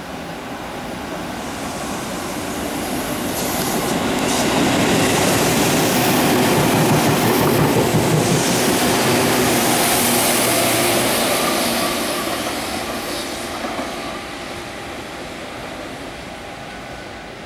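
Tobu 6050 series electric train, two coupled sets, passing through a station at speed. Its running noise grows to its loudest about halfway through, then fades as the train runs off.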